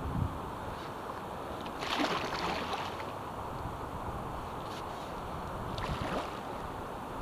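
Stand-up paddle strokes in the water: the blade dips and pulls with a splash about two seconds in and again around five to six seconds, over a steady background rush of water and wind.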